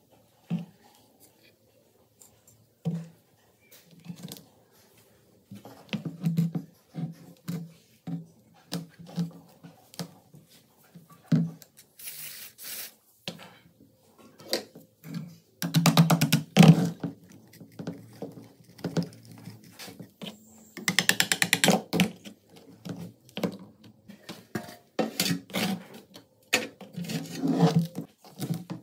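Rusted metal gun parts handled and worked apart on a work mat: irregular knocks and clunks, with two stretches of harsher rattling and scraping, one about halfway through and another a few seconds later.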